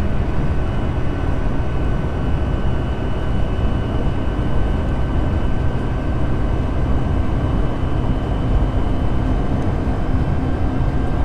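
Cabin noise of a Lada Niva cruising at motorway speed: a steady low drivetrain and road rumble with a constant high whine above it.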